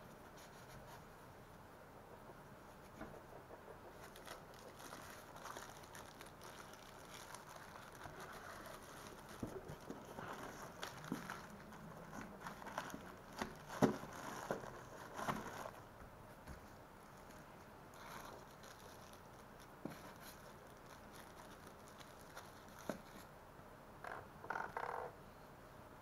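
Hands handling drone parts in a moulded packaging tray: plastic wrap rustling and scraping against the insert, with light clicks and knocks. It is loudest around the middle, where a few sharp knocks fall close together, and there is a short rustle near the end.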